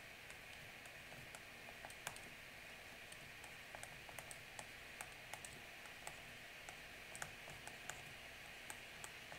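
Faint, irregular clicks and taps of a stylus on a tablet screen while handwriting an equation, over a low steady hiss.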